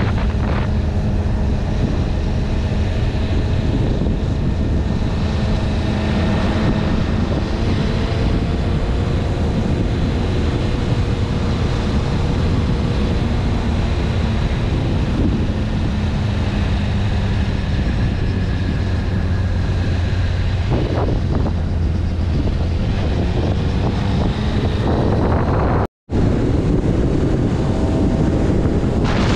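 Motorcycle engine running at a steady cruising speed, its hum drifting slightly in pitch, under heavy wind rushing over the camera microphone. Near the end the sound cuts out completely for a moment.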